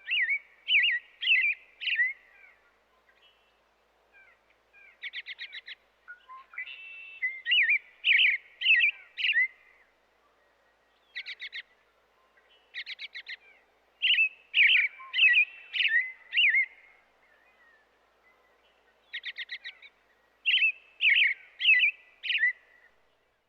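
American robin singing: phrases of three or four slurred whistled notes alternating with quick runs of short sharp chirps, each burst a second or two long with short pauses between.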